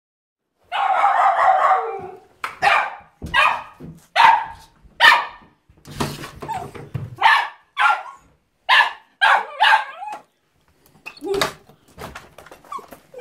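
A dog barking in alarm, as at a ring at the door in the night: a longer harsh sound about a second in, then about a dozen short, sharp barks in quick succession with a few pauses.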